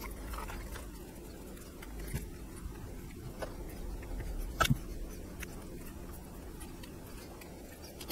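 Small clicks and taps from handling wired parts and a plastic panel while hot glue is applied to insulate the connections, with one sharper click about four and a half seconds in, over a steady low hum.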